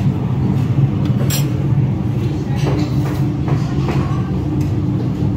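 Buffet-restaurant ambience: a steady low hum with a murmur of voices in the room and a few short clinks, as of metal serving utensils.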